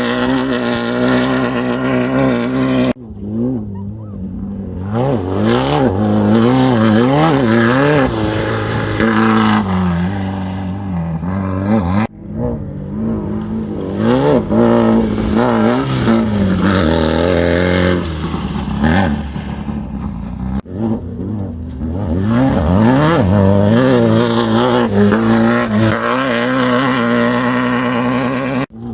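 Off-road race vehicle engines running hard and revving, their pitch swooping up and down again and again. The sound breaks off abruptly three times as one run gives way to the next.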